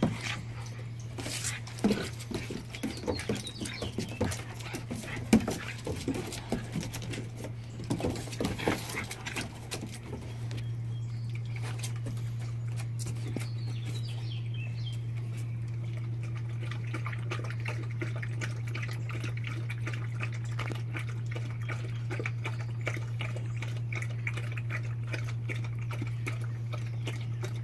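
A Doberman and a pit bull puppy play roughly for the first ten seconds or so, with irregular scuffles and knocks. Then both dogs lap water from a stainless steel bowl in a fast, steady run of laps. A steady low hum runs underneath.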